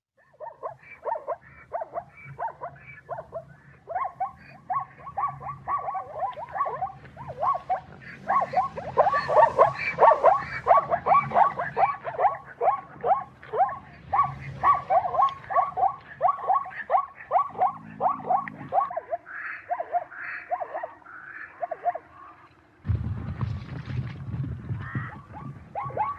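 Zebra calling: a long run of quick, repeated barking yelps, about three a second. Near the end the calls thin out and a low rumbling noise takes over for a few seconds.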